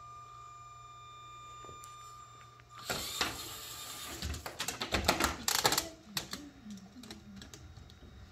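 Plastic LEGO robot parts clicking, knocking and rattling as the robot is picked up by hand and its attachment changed, starting about three seconds in. Before that only a faint steady high tone.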